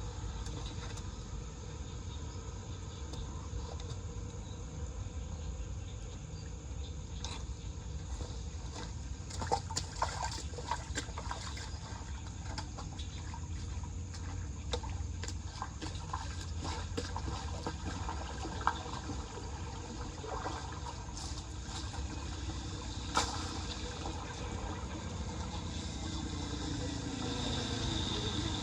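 Floodwater running and trickling into a cleared street storm drain, with a few sharp clicks along the way. A car engine rises in over it near the end.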